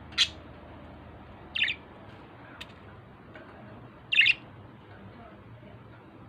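Budgerigar giving three short, sharp chirps a few seconds apart; the last is the loudest.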